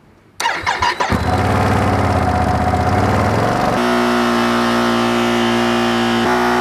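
Ducati Panigale V2S's V-twin engine, on its stock exhaust, running and then revved up and held steady at about 7,000 RPM for a sound-level check. The pitch steps up about four seconds in and holds, with a brief dip near the end.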